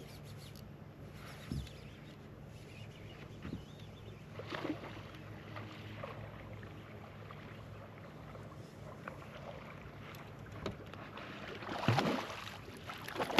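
Fishing boat on the water with a steady low motor hum, a few faint knocks, and one louder brief noise about twelve seconds in.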